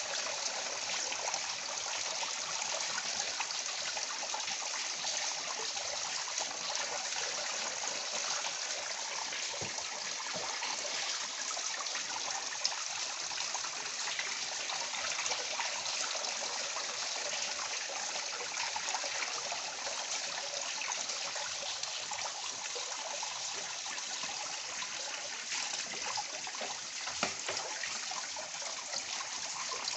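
Water running steadily from a pipe into a basin of water, a continuous trickle and splash.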